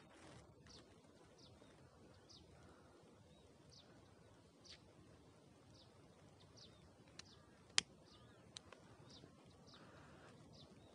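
Near silence inside a moving car: faint road noise, with a faint short high chirp about once a second and a sharp click about eight seconds in.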